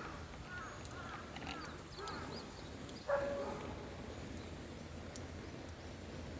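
Birds calling: short chirps over the first couple of seconds, then one louder, harsher call about three seconds in, over a faint steady low hum.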